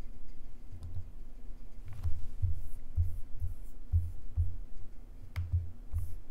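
Desk handling at a computer: a few sharp clicks scattered among irregular dull low thumps, over a faint steady hum.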